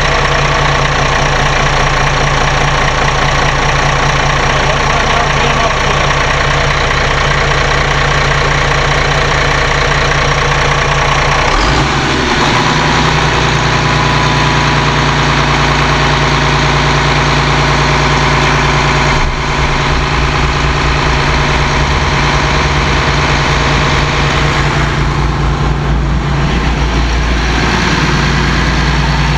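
Cummins QSC 600 marine diesel, a six-cylinder turbocharged engine, running at idle, loud and steady, heard up close through the open engine hatch; its tone shifts about twelve seconds in.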